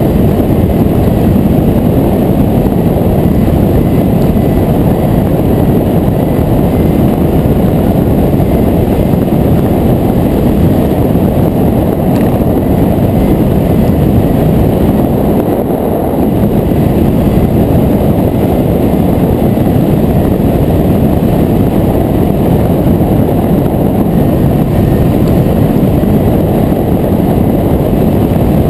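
Heavy, steady wind rush on the camera's microphone from the airflow over a hang glider in flight, easing briefly about halfway through.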